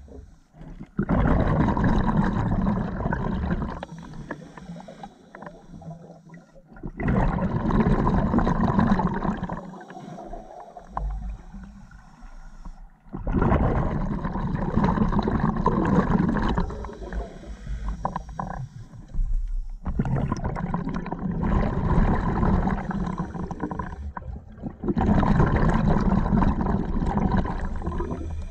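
Scuba diver breathing underwater through an open-circuit regulator. Five loud bursts of exhaled bubbles, each about three seconds long and about six seconds apart, with quieter stretches between.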